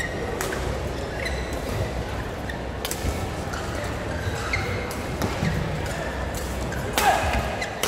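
Badminton rackets striking the shuttlecock a few times, with sneakers squeaking on the court over a steady crowd murmur; the loudest hit comes near the end.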